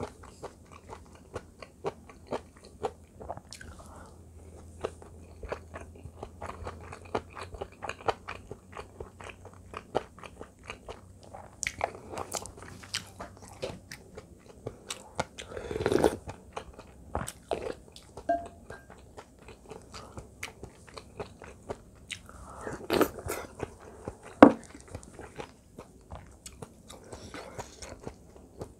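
Close-up chewing of radish-kimchi fried rice: steady small wet crunches and mouth sounds, with utensils scraping and knocking on the pan and bowl. There are a few louder clatters in the second half, the sharpest about three-quarters of the way through.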